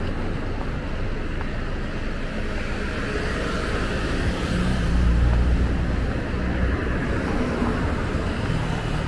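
Steady city street traffic noise, with a vehicle's low engine rumble swelling loudest about five seconds in as it passes close, then easing.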